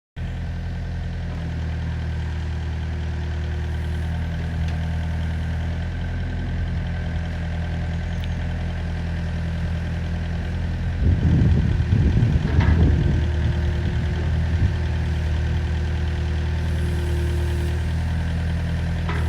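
Diesel engine of a Volvo ECR58 midi excavator idling steadily, with a louder, uneven rumble for about two seconds past the middle.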